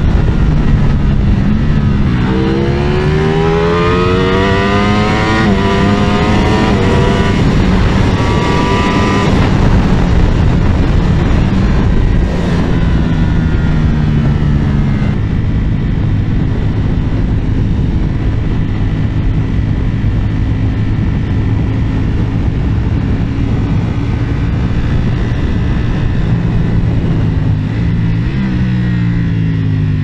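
Ducati Panigale V4 S's V4 engine under hard acceleration, its pitch climbing and dropping back at several quick upshifts, then holding a steadier cruise under heavy wind rush. Near the end the revs fall away as the throttle closes.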